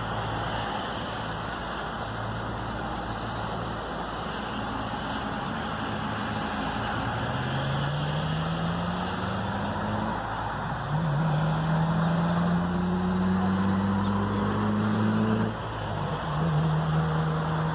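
Road traffic heard from a distance: a vehicle engine climbs in pitch twice, with a break like a gear change between, then drops and picks up again near the end, over a steady hiss of traffic and wind.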